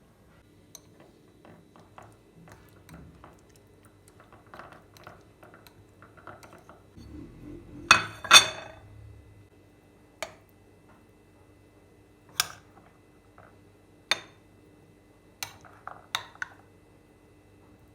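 Dishes and cutlery clinking: soft taps and handling noises at first, two loud clattering hits about eight seconds in, then five sharp single clinks a second or two apart.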